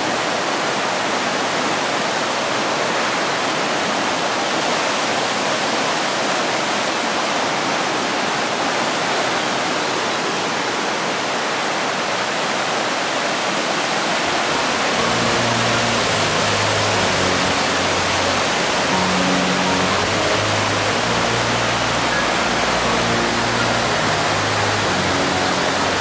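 A swollen rocky stream rushing steadily over boulders and rapids. About halfway through, background music with low held notes comes in under the water.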